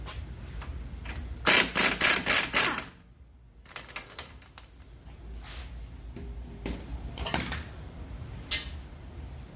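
A quick run of about six loud, sharp knocks on metal about a second and a half in, then scattered lighter clicks and taps of tools working on the front hub and axle.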